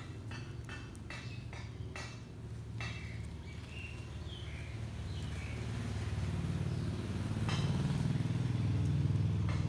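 A low, steady motor-like hum that grows louder over the last few seconds. A few light taps and clicks sound in the first three seconds, and faint short high squeaks come around four seconds in.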